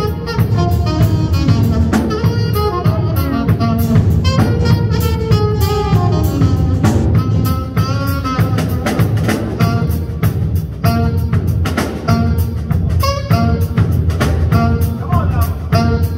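Live jazz band playing: saxophones carry the melody over a drum kit keeping time.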